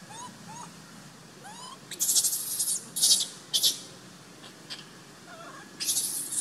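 Baby pig-tailed macaque crying: short squeaky whimpering calls that rise and fall, then loud shrill screeches, four in all, the longest about two seconds in and another near the end.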